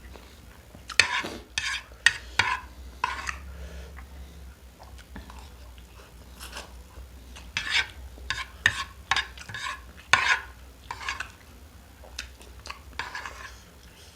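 Cutlery stirring and scraping through fried instant noodles in a dish during eating, in irregular short bursts that come in clusters.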